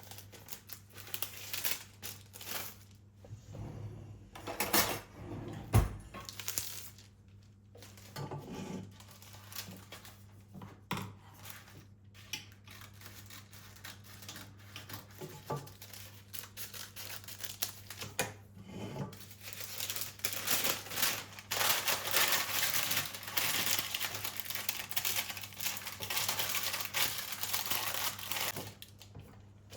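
Household handling sounds: irregular rustles with scattered clicks and knocks, turning into a denser, continuous rustling or scraping for the last third. A faint steady low hum runs underneath.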